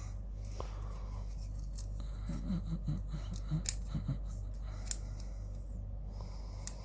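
Small plastic model-car kit parts being handled and fitted together, giving scattered light clicks, over a steady low electrical hum.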